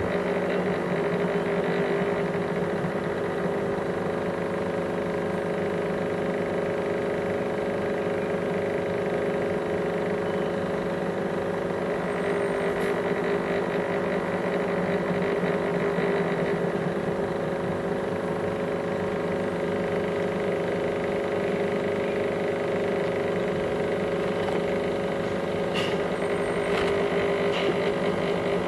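A motor running steadily: a constant hum made of several steady tones, with a few faint ticks near the end.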